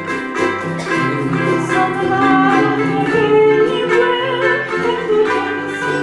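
Ukulele ensemble playing an instrumental break of a calypso tune: steady rhythmic strumming over a stepping bass line, with a sustained melody line on top.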